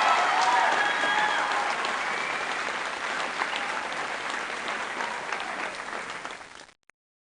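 Crowd applauding, with a few voices calling out in the first second or so; the clapping gradually fades out and stops shortly before the end.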